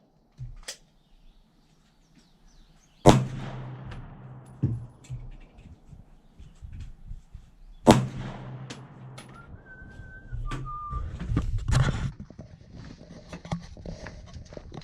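Two loud 9mm pistol shots from a Zev Tech OZ9, about five seconds apart, each ringing off, with fainter pops of other gunfire in between. Near the end there is a brief two-note whistle-like tone, then some rustling.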